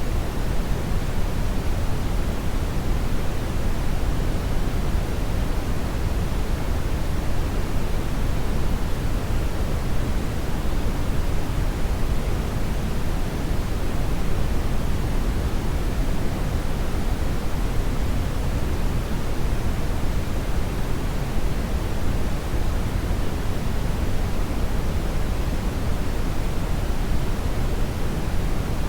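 Hair dryer blowing steadily: an even, unbroken rush of air, heaviest in the low end, with no change in speed.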